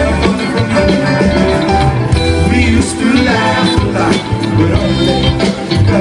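Live band music: a full band playing a song, with voices singing in places.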